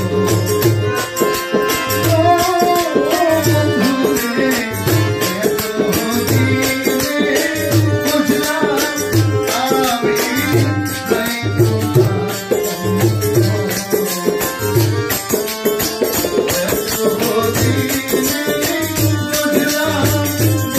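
Live folk devotional music: a man sings a melodic line over a hand drum beating a repeating low pattern, with rapid jingling percussion strikes and steady held instrumental tones underneath.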